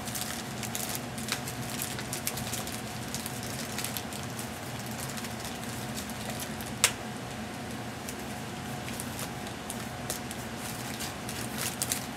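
Rustling and crinkling of a mailing envelope being torn open and handled by hand, with scattered small clicks and one sharp click about seven seconds in, over a steady low hum.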